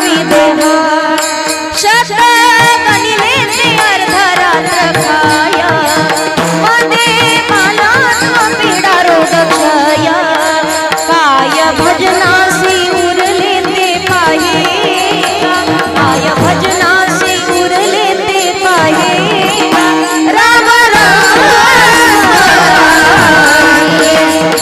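A woman singing a Marathi devotional song with a strong, ornamented voice, over a steady drone and rhythmic percussion.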